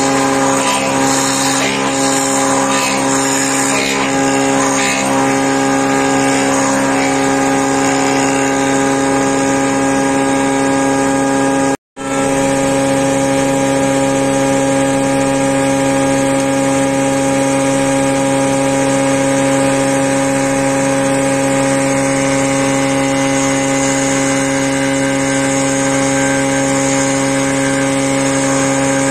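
Wood boring machine running steadily with a constant motor hum, its drill bit cutting into a hardwood beam. There is rough rasping from the bit chewing wood in the first several seconds. The sound cuts out briefly about twelve seconds in.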